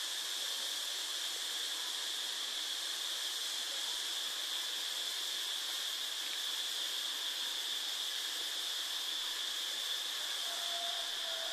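Steady high hiss with a constant thin whine in it, and a kitten giving a short faint mew near the end.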